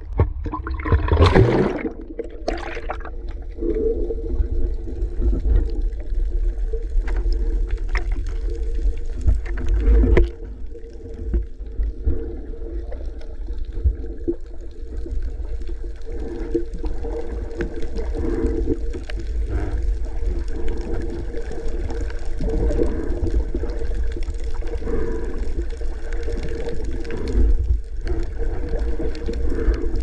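Muffled sloshing and gurgling of seawater around a camera held underwater while snorkeling, with a steady low rumble and irregular surges. A louder rush of water comes about a second in.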